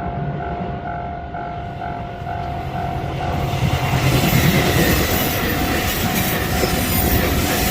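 Japanese level crossing bell clanging in a steady pulse, about twice a second, as a JR Kyushu 883 series electric express train approaches and passes. The train's rumble grows loud about three seconds in, with wheels clacking over the rail joints.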